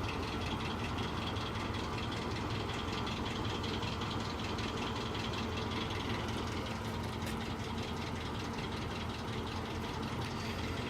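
Mazda B2000 pickup's four-cylinder engine idling steadily.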